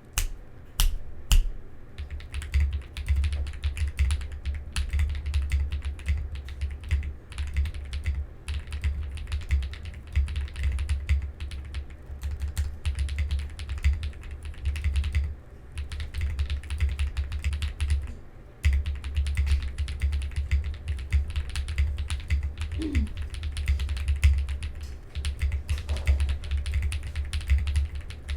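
Typing on a Zoom65 mechanical keyboard with lubed and filmed Radiant Red switches and all foams installed: a fast, dense stream of keystrokes. A few single key presses open it, and the typing breaks off briefly twice.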